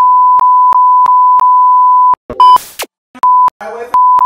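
Censor bleep: a loud steady 1 kHz beep tone blanking out a ranting man's swearing, held for about two seconds with faint clicks about three times a second. A short loud noisy burst follows, then two shorter bleeps with fragments of his voice between them.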